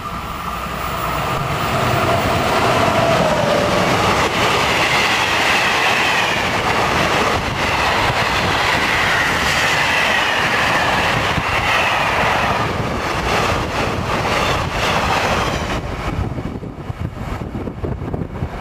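SNCF BB 22200 electric locomotive and its freight wagons passing at speed. A falling tone comes as the locomotive goes by, then the wagons make a steady loud rolling noise with high wheel squeal and clickety-clack. The noise eases off near the end as the last wagons clear.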